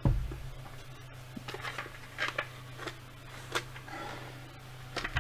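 Hard plastic Red Ranger helmet being handled and pulled off the head. A low thump comes right at the start, then scattered light knocks and rubs of plastic, over a steady low hum.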